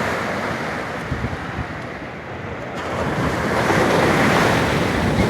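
Sea waves breaking and washing up on a sandy beach, the surf swelling louder about three seconds in, with wind buffeting the microphone.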